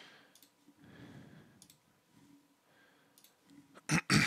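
Computer mouse clicking: a few faint clicks spread out, then two much louder clicks in quick succession near the end.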